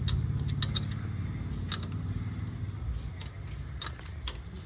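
Sharp metal clicks and clinks of a spanner working the brake caliper's bleeder screw as it is tightened after gravity bleeding, a few irregular ticks over a low steady hum.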